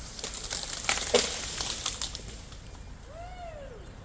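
Irregular crackling and snapping clicks, with one short call about three seconds in that rises and then falls in pitch.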